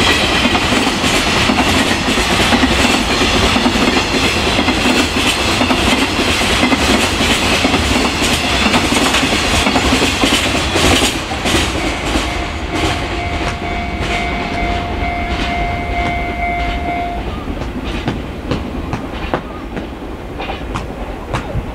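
Freight train of container flat wagons rolling past, with wheels clattering over rail joints. The sound fades about halfway through as the end of the train draws away, leaving separate clicks. A steady high tone sounds for about five seconds in the middle.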